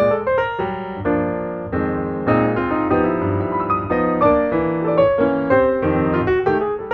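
Piano music, with chords and melody notes struck one after another.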